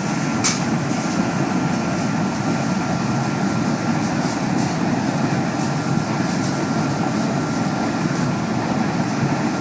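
Biomass sawdust burner running: a steady, deep rushing noise with a faint steady whine above it, and a single click about half a second in.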